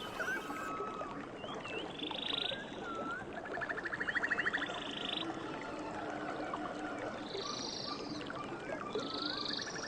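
Forest ambience: a dense chorus of wild animal calls over a steady background hiss. There are short swooping chirps, and fast buzzy trills repeat throughout, the loudest one near the middle.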